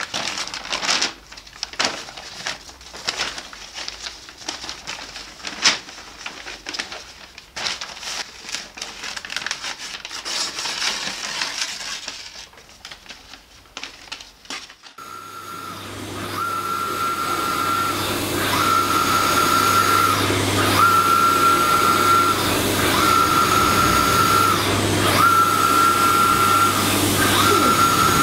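Scattered clicks and knocks, then, about halfway through, a wide-format printer starts running: a steady hum, with the print-head carriage whining in runs of about a second and a half, roughly every two seconds, as it sweeps back and forth.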